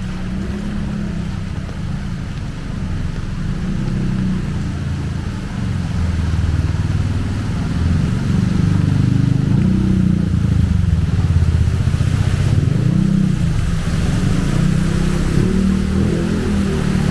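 Motor vehicle engines running close by, with a low drone that wavers in pitch and grows louder partway through.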